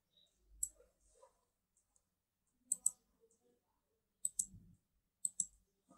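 Computer mouse button clicking, several faint clicks that mostly come in quick pairs about a second or more apart.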